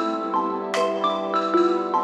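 Background music led by bright mallet percussion, marimba- or glockenspiel-like notes in a repeating pattern.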